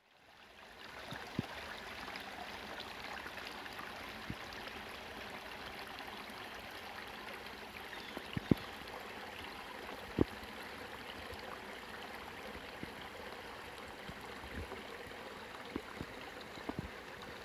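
Small woodland stream trickling steadily over a low ledge into a shallow pool. A few sharp clicks stand out, the loudest two about eight and a half and ten seconds in.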